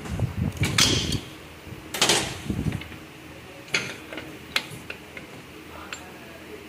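Metal parts clicking and scraping inside a Nissan RE4R01A automatic transmission case as the clutch drum and gear parts are handled and seated by hand. A rattling scrape about two seconds in is the loudest, followed by a few lighter clicks.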